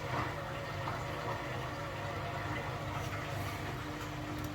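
Beko washing machine's drain pump running with a steady low hum as it pumps the soapy wash water out at the end of the wash cycle.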